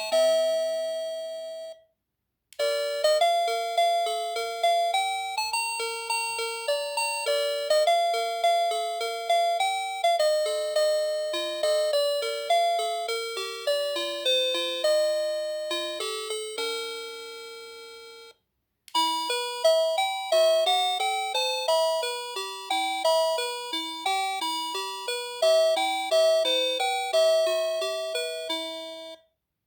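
Electronic doorbell playing its built-in chime melodies one after another, each note struck and fading like a bell. The tail of one tune ends in the first two seconds. After short pauses come a longer melody of about sixteen seconds and another of about ten.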